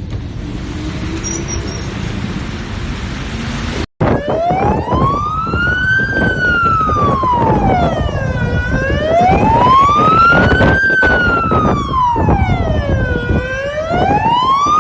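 A steady rushing of wind for the first few seconds. After a cut, an emergency-vehicle siren wails, sliding slowly up and down about once every four and a half seconds, over a low rumbling noise.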